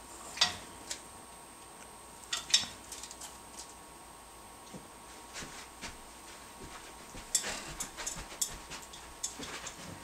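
Irregular light clicks and clinks at a wire birdcage, coming a few at a time. The sharpest come about half a second and two and a half seconds in, with a cluster around seven to eight seconds.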